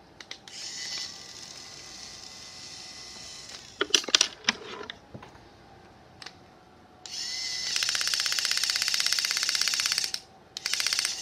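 Hyper Tough cordless drill running in bursts with a scissors blade clamped in its chuck. A short quieter run is followed by a few clicks and knocks about four seconds in, then a louder run with a fast rattle from about seven to ten seconds, which stops and starts again near the end.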